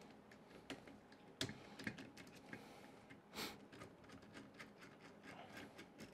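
Faint, scattered light clicks and ticks of small metal hardware (screws and spacers) being handled and worked with a small screwdriver, with a sharper click about a second and a half in and a short scrape about three and a half seconds in.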